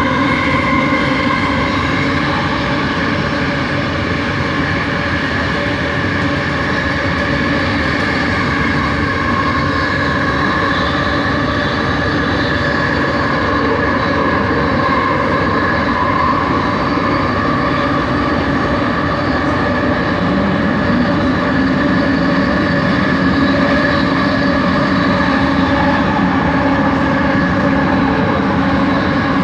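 Kelana Jaya Line metro car running, heard from inside the carriage: a steady rolling rumble under several held whining tones from the original linear induction motors, the odd motor noise this line's older trains are known for. About twenty seconds in, a lower humming tone joins and climbs slightly in pitch.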